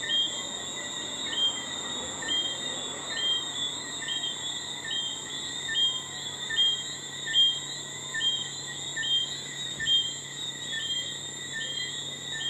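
Night chorus of calling insects: a steady high-pitched trilling, with a short chirp repeating about twice a second, over a faint steady low hum.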